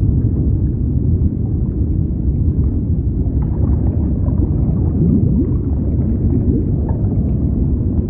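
Underwater water ambience: a steady, muffled low rumble of moving water with faint bubbling. There is a brief rising sound about five seconds in.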